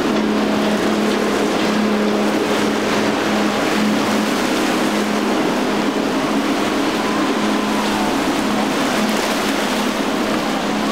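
Twin outboard engines of a center-console boat running at speed through choppy water: a steady engine drone over the rush of spray. The drone fades after about eight seconds as the boat pulls away.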